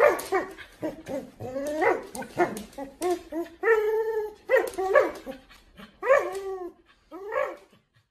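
Husky vocalising during a tug-of-war with a rope toy: a string of about a dozen short whining, yipping calls that rise and fall in pitch, with one longer, steadier call about halfway through.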